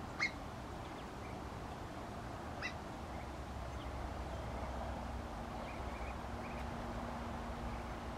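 A few short, high peeps from Muscovy ducklings, the loudest right at the start and another a little before the middle, over a low steady background rumble.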